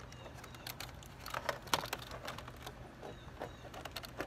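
Plastic wiring-harness connectors and the loose door panel of a pickup truck rattling and clicking as they are handled, a run of small irregular clicks with one sharper click a little under two seconds in.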